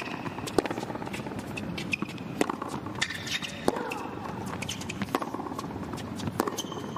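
A tennis rally on a hard court: racket strikes on the ball about every second and a half, with lighter ball bounces between them and brief shoe squeaks on the court surface.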